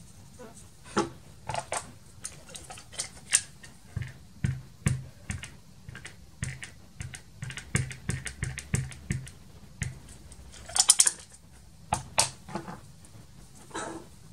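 Light clicks and taps of clear stamps and an acrylic stamping block being handled on a cutting mat as a stamp is readied for a greeting. A quicker run of small taps, about three a second, comes in the middle, and a louder short cluster of clicks comes near the end.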